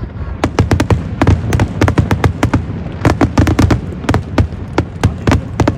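Fireworks going off: many sharp bangs and crackles in quick, irregular succession, several a second, over a low rumble.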